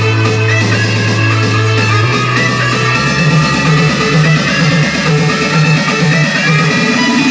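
Guitar-and-drums rock-style music played at full volume through a Logitech Z607 5.1 speaker system and its subwoofer, with a strong, steady bass line that changes note a few times.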